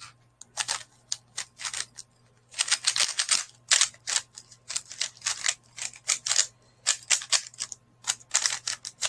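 A speedcube being scrambled by hand: its layers turned in quick runs of sharp plastic clicks and clacks, with short pauses between runs.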